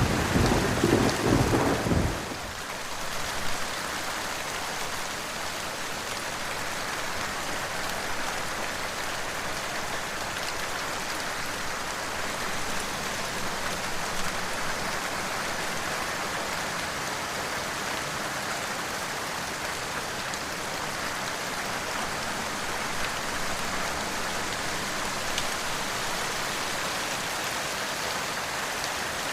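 Steady heavy rain falling, an even hiss. A low thunder rumble fills the first two seconds or so and cuts off suddenly.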